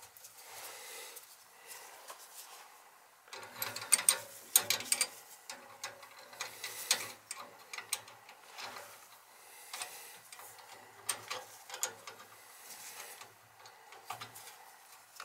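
Hand tools working the fittings on a boiler's replacement gas valve: irregular metallic clicks and ticks of a wrench on the fittings, starting a few seconds in.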